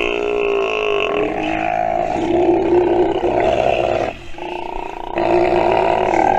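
Steller sea lion pup calling: long, pitched, drawn-out calls, one after another, with a short break about four seconds in before another long call.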